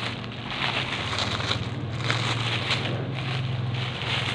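Thin clear plastic bag crinkling and crackling as it is worked open by hand, in a dense irregular run of rustles.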